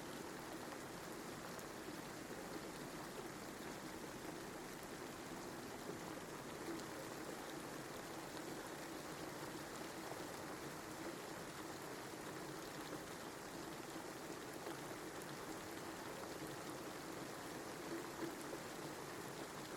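Steady rain falling: a continuous, even patter.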